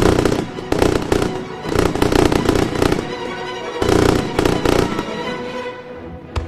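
Fireworks going off in dense clusters of sharp cracks over music, thinning out after about five seconds, with one last sharp crack near the end.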